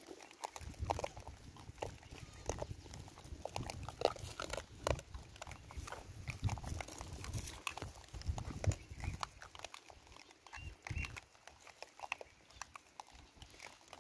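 Rhesus macaques foraging grain on a rock: many small irregular clicks and scratches of hands and seeds on gritty stone, with a couple of short high squeaks about eleven seconds in.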